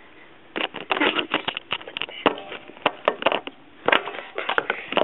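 iPod Touch retail box and its plastic packaging tray being handled, giving a string of irregular rustles, scrapes and clicks.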